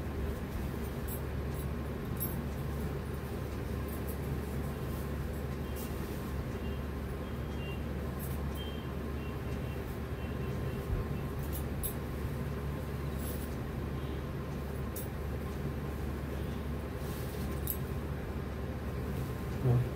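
Steady hum of a room air conditioner running, with faint crinkling and ticking of a stiff silk saree with gold zari being unfolded and handled.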